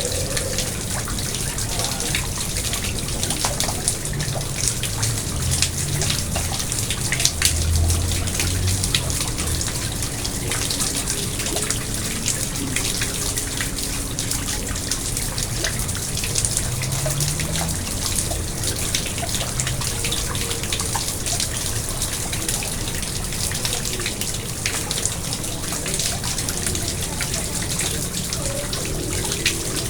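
Garden pond water trickling and splashing steadily, with many small drips.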